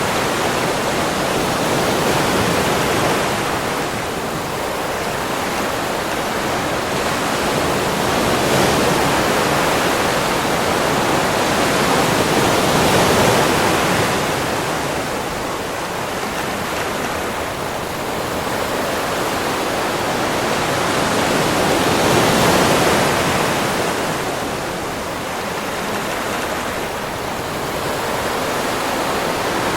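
Ocean surf washing onto a beach: a continuous rush of water that slowly swells and eases every several seconds, with the biggest surges about halfway through and again around two-thirds of the way in.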